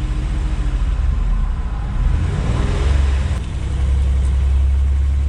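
Car engine revved against the brakes in drive in a brake torque test: the rumble rises about two to three seconds in, then holds steady and louder under load. A faulty ignition coil has just been moved to cylinder 6, so the engine is misfiring on that cylinder.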